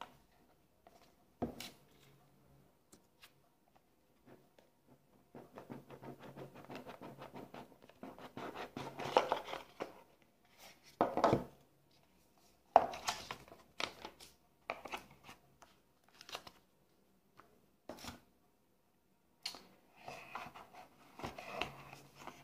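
Cardboard packaging being handled and opened: the box is slid, rubbed and turned in the hands, giving scraping, rustling and occasional taps. A longer stretch of scraping and rustling comes in the first half, followed by a few sharper scrapes.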